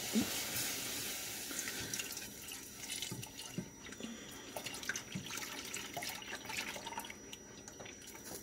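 Half and half poured in a thin stream from a plastic measuring cup into a pot of hot butter-and-flour roux, a liquid hiss that thins out over the first few seconds. Light scattered clicks of a whisk against the pot run throughout as the mixture is stirred.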